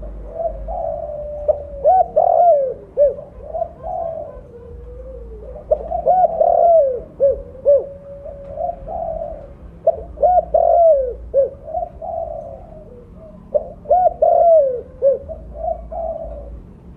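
Spotted dove (tekukur) cooing with a big, deep voice: about four repeated phrases of several short, rounded coos, one every four seconds or so.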